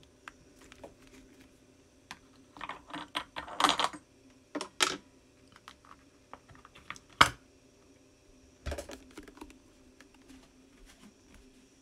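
Handling noise as a disc is lifted off a record-cutting lathe's platter: irregular clicks, taps and light knocks in quick runs, with one sharp knock about seven seconds in. A faint steady hum runs underneath.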